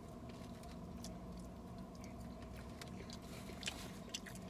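Chewing salad close to the microphone: a few soft, scattered crunching clicks over a steady low hum.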